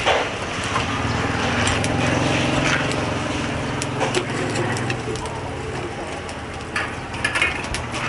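Metal tongs knocking and scraping lumps of burning charcoal in the firebox of a charcoal oven, with sharp clinks scattered through. A steady low motor hum runs underneath and fades out about six seconds in.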